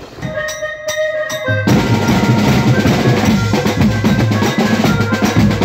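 Drum troupe playing a fast, dense rhythm on bass drums, snare and tom-style drums, with a heavy low beat. The drumming comes in about a second and a half in, after a short stretch of a few held tones.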